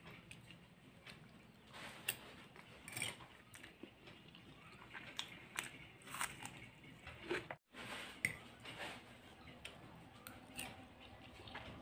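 Faint eating sounds: chewing and crunchy bites of chow mein and raw onion, with soft scattered clicks of a fork and spoon against the plate. The sound cuts out completely for a moment about eight seconds in.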